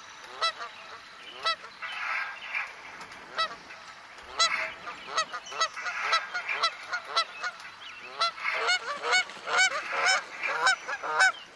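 Geese honking: many short calls in quick succession, some overlapping, thickest in the second half.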